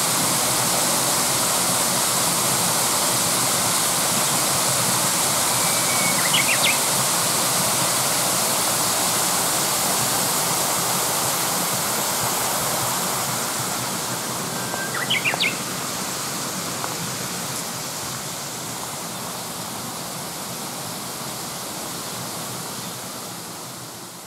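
Mountain stream water rushing steadily over rocks. A bird gives a short call twice, about six and fifteen seconds in. The sound slowly falls away toward the end.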